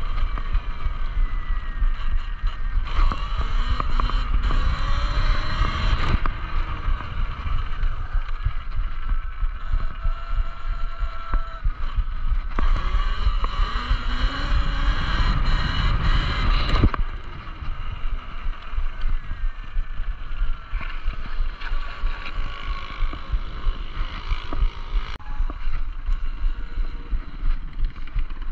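Talaria Sting electric dirt bike riding, its motor whining and rising in pitch through two hard accelerations, about three and about thirteen seconds in, over a constant wind rumble on the microphone. The louder stretch cuts off suddenly about seventeen seconds in, leaving a quieter whine and wind.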